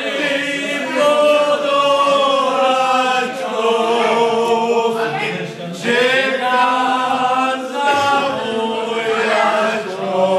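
A group of men singing together without accompaniment, in long held notes.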